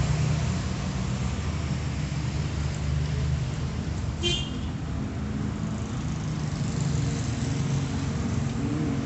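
Steady low rumble of road traffic. A brief high-pitched toot sounds about four seconds in.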